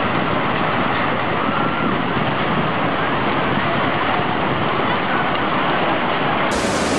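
A loud, steady rushing roar with no distinct events, of the kind tsunami floodwater or strong wind makes. It suddenly turns brighter and hissier near the end.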